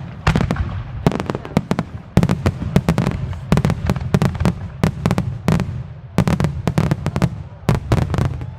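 Fireworks display: aerial shells and salutes bursting in rapid volleys, clusters of sharp bangs coming about once a second with short gaps between, over a continuous low rumble.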